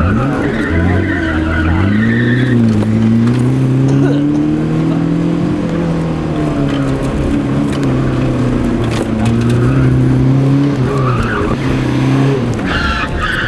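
Car engine driven hard through autocross turns, its revs rising and falling, with tires squealing for a couple of seconds at the start and again near the end.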